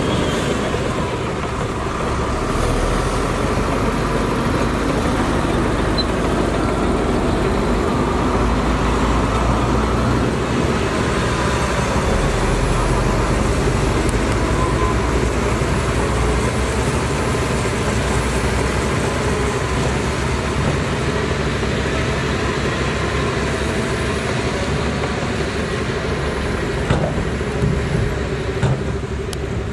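Bulldozer's diesel engine running steadily while working, with a few sharp knocks near the end.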